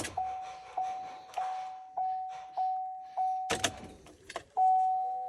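A sharp click, then the L5P Duramax truck's dash warning chime dinging about once every 0.6 s as the ignition is switched on to run the lift pump and prime the fuel system after a fuel filter change. A couple of clunks come about three and a half seconds in, followed by a longer chime with a second, lower tone.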